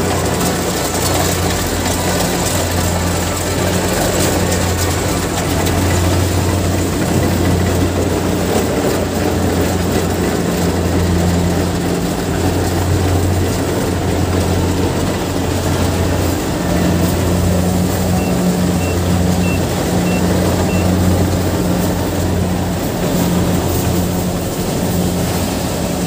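Kubota DC70 Plus rice combine harvester running steadily under load while it cuts and threshes rice. Its diesel engine drones low, with a dense machinery noise from the cutting and threshing works over it.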